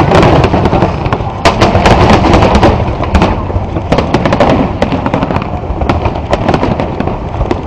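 Aerial firework shells bursting in quick succession: a dense run of sharp bangs and crackles over a continuous low rumble, loud.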